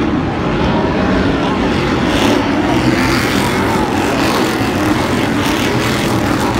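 Stadium Super Trucks racing, several V8 engines running loud and revving up and down as the pack passes.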